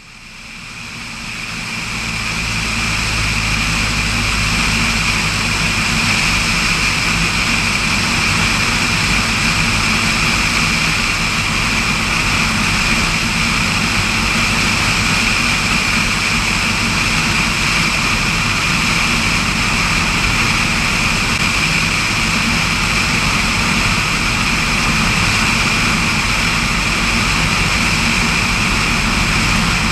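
Floatplane's engine and propeller running steadily, fading in over the first couple of seconds and then holding at a constant level.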